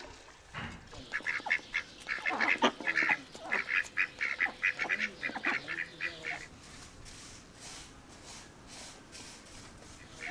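Duck quacking in a rapid run of short calls that lasts about five seconds, then stops.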